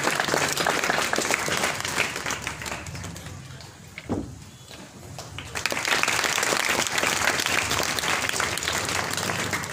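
Audience clapping, dying down about halfway through with a single thump in the lull, then starting up again.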